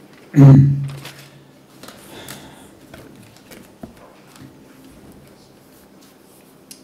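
A loud thump at the wooden pulpit close to the microphone, with a short low boom that dies away within about a second. It is followed by faint rustling and small knocks as things are handled on the pulpit.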